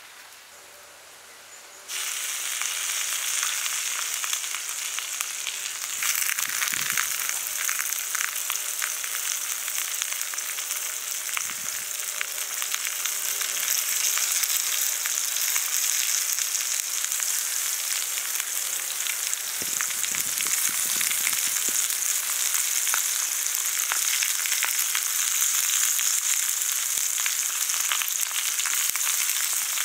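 Banana-leaf parcels of snakehead murrel fish sizzling in oil on a hot iron dosa pan, a steady hiss with fine crackling. The sizzle starts suddenly about two seconds in, as the first parcel goes down, and gets louder a few seconds later as more are laid on the pan.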